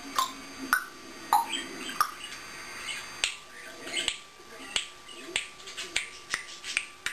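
African grey parrot making an irregular series of sharp clicks, about two a second, some with short squeaky chirps.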